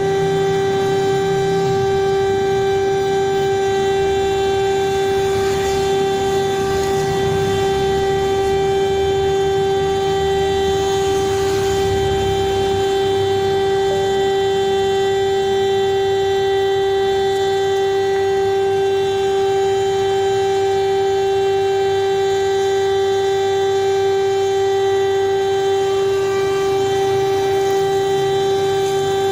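A loud, steady electronic alarm tone held on one unchanging pitch, with a stack of overtones, in the style of an emergency alert attention signal.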